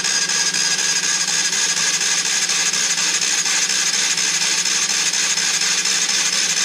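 Honda CB125E single-cylinder engine spun over continuously on its electric starter motor with the spark plug out, a steady whirring with a constant whine. The fresh engine is being cranked without starting, to prime the oil system and show the oil pump is working.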